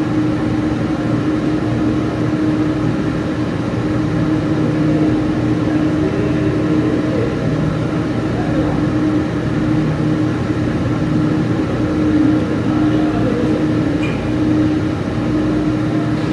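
Steady machine hum with a constant low tone that holds unchanged throughout.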